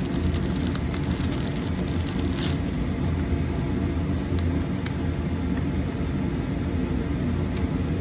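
Steady low rumble throughout, with a few light crinkles and clicks of packaging in the first couple of seconds as a small jewelry package is unwrapped.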